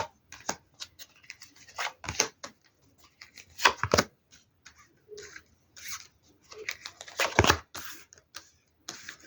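A deck of tarot cards being shuffled and handled: irregular papery snaps, slides and rustles, with louder runs of shuffling about three and a half and seven seconds in.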